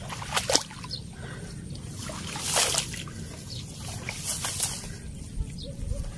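Wading through shallow swamp water and tall grass: several separate sloshing, swishing steps, one every second or two.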